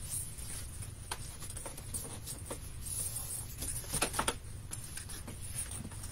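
A strip of scored cardstock paper being folded and creased by hand along its score lines: light, scattered paper crinkles and taps, with a short louder cluster about four seconds in.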